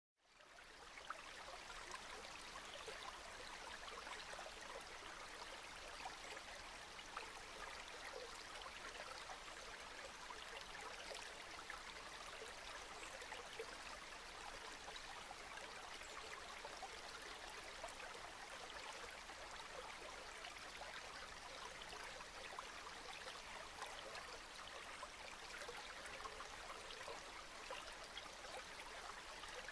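Steady rain falling: a soft, even hiss dotted with faint drop ticks, fading in over the first second.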